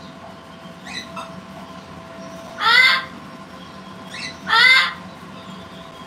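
A pet parrot giving loud, short calls twice, about two seconds apart, each rising in pitch.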